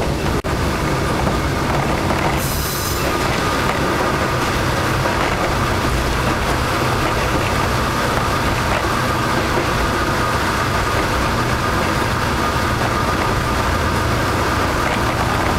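Cabin of a KiHa 52 twin-engine diesel railcar under way: a steady rumble of engines and wheels on rail. A brief hiss comes about two and a half seconds in, and a thin, steady high tone joins from about three seconds on.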